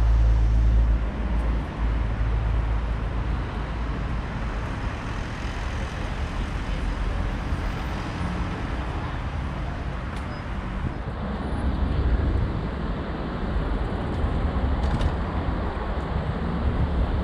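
City road traffic passing steadily, a continuous low rumble of engines and tyres.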